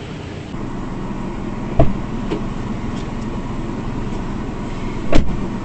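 Car running with a steady low hum, with two sharp thumps, one about two seconds in and one near the end.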